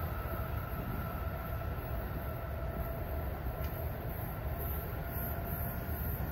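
Amtrak train with ACS-64 electric locomotives receding down the track: a steady low rumble with a thin high whine over it, easing slightly at the start and then holding.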